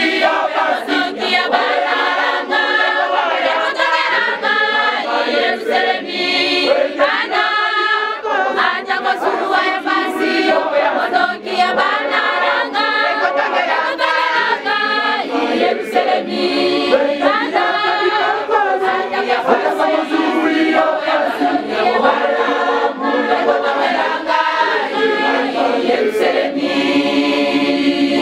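A choir of women's voices singing together in chorus, many voices at once and continuing without a break.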